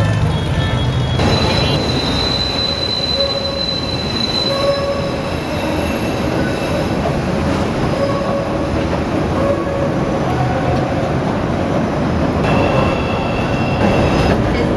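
Chicago CTA 'L' train running along the steel elevated track, a steady loud rumble with high-pitched wheel squeal that comes and goes.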